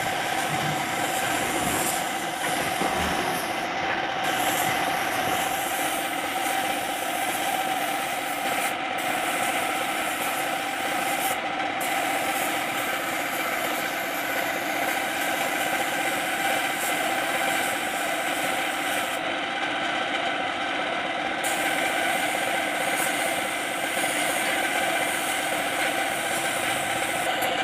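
Power sander running steadily against the steel side of a dump truck's body, a continuous machine hum with a rubbing edge, as the old paint is sanded down.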